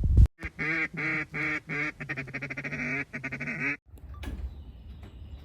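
A run of duck quacks: about four long, drawn-out quacks followed by a quicker string of shorter ones. The sound starts and stops abruptly, and a faint low rumble follows for the last second and a half.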